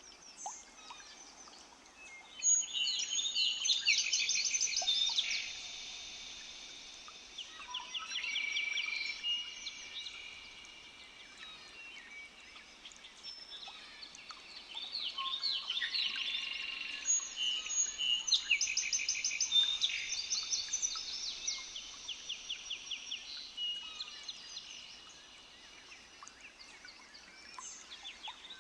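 Several birds singing at once, their songs overlapping in fast trills and rapidly repeated high notes, with a few long whistled notes. The chorus swells strongly a couple of seconds in and again in the middle, easing between.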